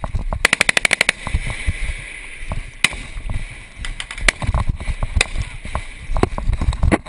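Automatic gunfire: a rapid burst of about ten rounds about half a second in, then single sharp shots now and then. Heavy low thumps and rattle of a soldier moving run under it.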